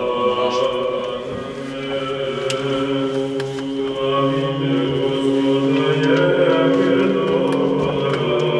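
Choral chant with long held notes over a steady low note, the voices changing pitch slowly.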